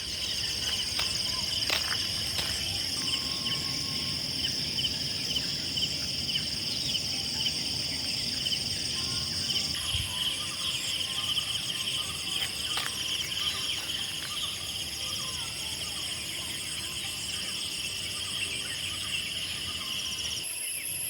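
Chorus of trilling insects, several steady high-pitched layers at once. About ten seconds in, the highest trill fades and a lower one grows louder, over a low background hum with a few faint clicks.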